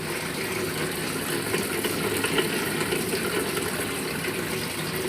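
Panasonic top-load washing machine filling its tub with water as a wash cycle starts: a steady rush of inflowing water that begins suddenly.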